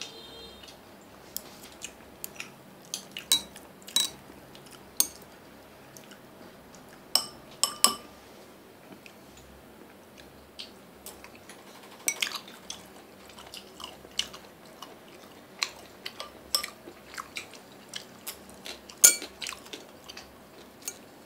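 Chopsticks clicking and tapping against ceramic bowls and a plate, in scattered, irregular clicks, a few louder ones ringing briefly, with chewing between them.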